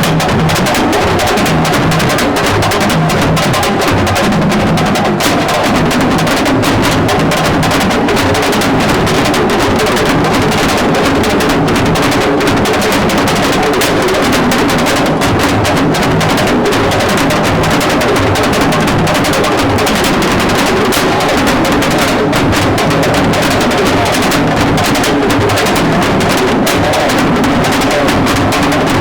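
Loud, continuous drum-driven music with a dense beat of many strikes.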